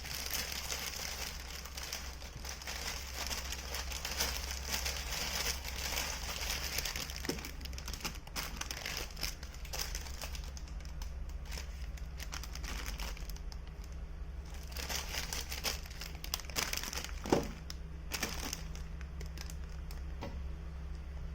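Plastic instant-noodle packet crinkling and rustling as it is handled, with many small irregular crackles, busier in the first half.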